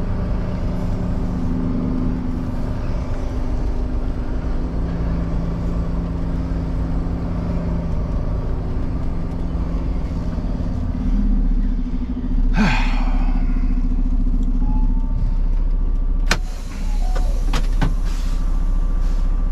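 Semi-truck diesel engine running steadily as the tractor-trailer is pulled slowly forward, its note shifting and getting louder about eleven seconds in. A short burst of hissing air comes soon after, followed by a few sharp clicks.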